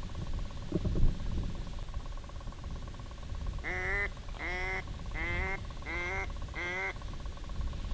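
A duck quacking five times in an even series, each quack about half a second long with a slight rise in pitch at its start, in the manner of a mallard. Low wind rumble underneath, and a soft knock about a second in.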